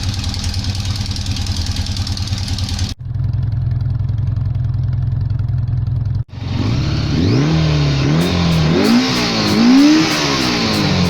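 1983 Honda GL1100 Gold Wing's flat-four engine running. It idles steadily through two short clips that cut off abruptly at about three and six seconds, then is revved up and down several times from about seven seconds in.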